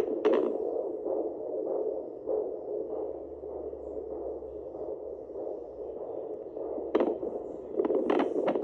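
Handheld home fetal doppler's speaker giving a continuous whooshing hiss that swells and fades, with a few scratchy crackles near the end.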